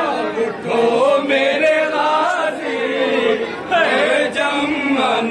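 A crowd of men chanting together in a Muharram mourning chant, several voices singing the same drawn-out melodic line.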